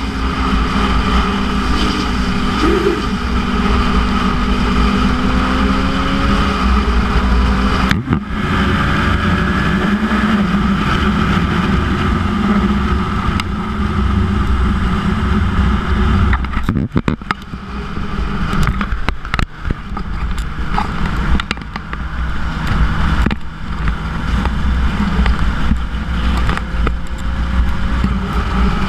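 Yamaha YZF-R1 motorcycle with a Yoshimura titanium exhaust running at road speed, its engine note steady under heavy wind rush on the microphone, with the pitch rising a little now and then. About halfway through, the sound turns choppy for a few seconds with gusty dropouts.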